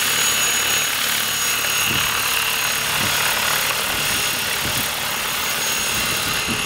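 Radio-controlled model aircraft flying, its small engine giving a steady high-pitched whine over a noisy background.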